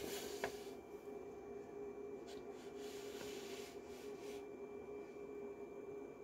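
Faint rubbing and rustling of a paper picture book's pages as the open book is held up and moved, with a light click about half a second in, over a steady faint hum.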